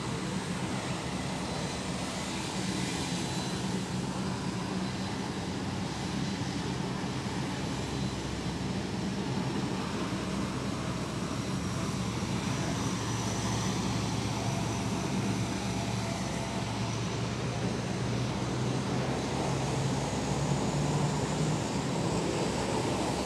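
Lockheed C-130 Hercules turboprop engines running on the ground: a steady drone with a faint high whine.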